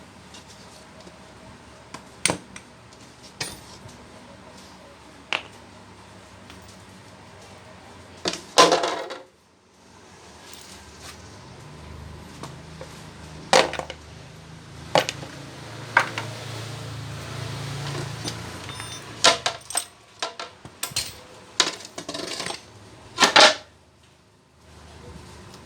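Scattered metallic clinks and clanks of tools and jackhammer parts being handled, with louder clattering about nine seconds in and again near the end. A low hum runs from about eleven to nineteen seconds in.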